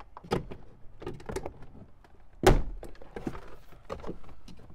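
Plastic retaining clips of a Ford F-150 rear door trim panel popping loose as the panel is pried off: several sharp snaps, the loudest about halfway through.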